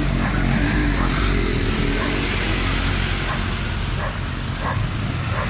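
Slow-moving road traffic: trucks and cars creeping past with their engines running, a steady low rumble.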